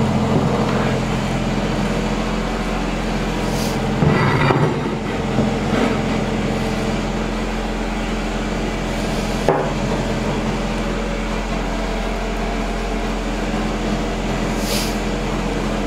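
Ninja Foodi Max multicooker running with a steady fan hum, the ribs inside sizzling and bubbling as they should. A couple of knocks, about four seconds in and again near the middle.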